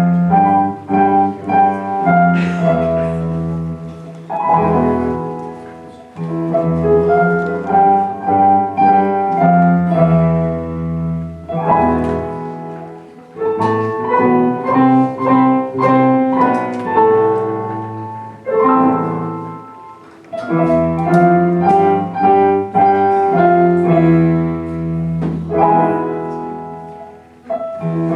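Junior high school ensemble playing an instrumental piece with a piano-like sound: chords over a steady bass, in phrases of about eight seconds with a short dip between them.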